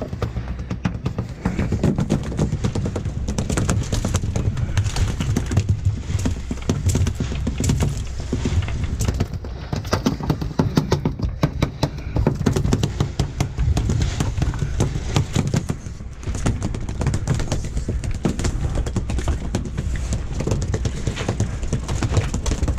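Steady wind rumble on the microphone, with dense, irregular clicking and knocking throughout.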